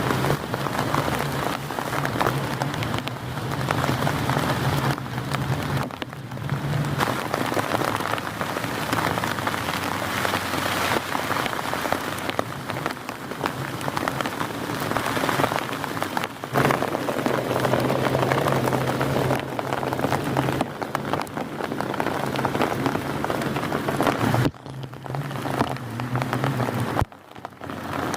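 Heavy rain pouring steadily, a dense, loud patter, broken by two brief sudden drops in level near the end.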